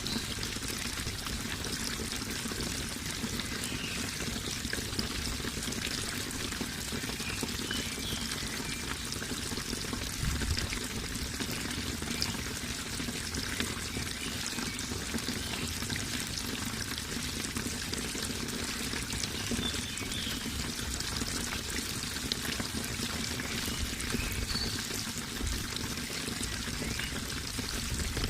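Running water in a steady, continuous flow.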